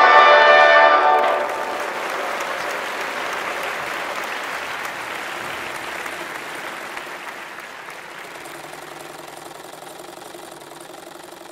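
A held final chord of live music that stops about a second in, followed by audience applause that slowly fades away.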